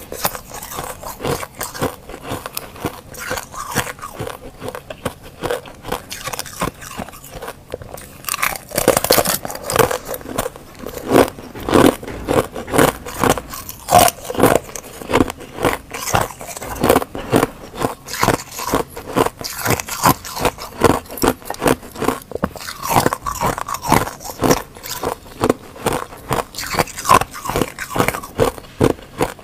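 Freezer frost and thin sheets of ice being bitten and chewed close to a clip-on microphone: a dense run of crisp crunching and crackling. About nine seconds in the crunches get louder and fall into a quick, steady chewing rhythm.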